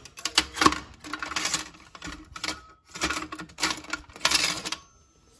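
Metal flatware with wooden handles clattering and clinking in a clear jar as a hand rummages through it and lifts pieces out. It comes in repeated rattling bursts that stop shortly before the end.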